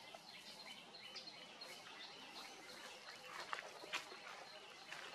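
Faint outdoor ambience with birds chirping now and then. Two short, sharp sounds come about three and a half and four seconds in.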